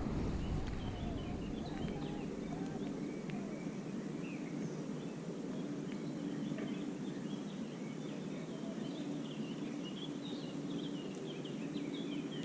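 Birds chirping and calling with many short, quick notes, over a steady low hum and background noise.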